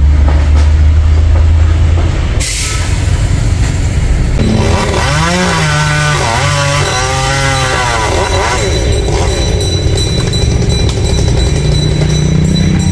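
Chainsaw running: a low steady idle for about two seconds, then revved, its pitch dipping and rising again and again for a few seconds.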